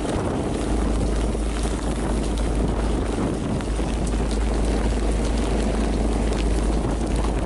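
Wind blowing over the microphone on a small fishing boat in rough weather: a steady low rumble under an even rushing noise, with faint scattered ticks of rain.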